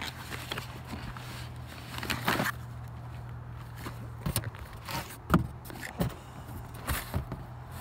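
Handling a boxed item in a fabric shopping bag: rustling and a few light knocks and bumps as the box is moved, the sharpest a little over two-thirds of the way in. A steady low hum underneath stops about halfway.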